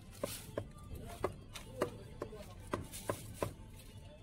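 Large knife chopping crisp fried fritters on a cutting board: about ten sharp chops at an uneven pace of two to three a second.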